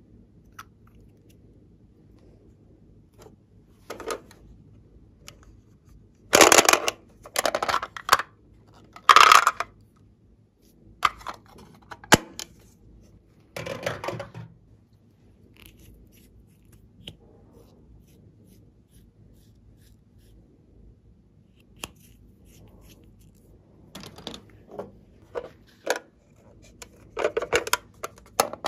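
Close-up handling of plastic cosmetic packaging: a lip gloss tube and its cap, then a plastic makeup palette case. Short sharp clicks and scrapes come in clusters, the loudest a few seconds in, with a quiet spell of several seconds before more clicks near the end.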